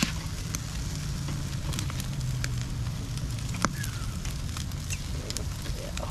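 Food cooking on a grill over a fire: a steady sizzle with scattered sharp crackles and pops.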